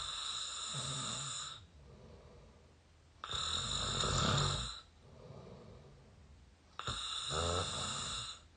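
A person snoring through the mouth, close to the microphone: three loud, rattling snores about three and a half seconds apart, each lasting about a second and a half, with quieter breathing between them.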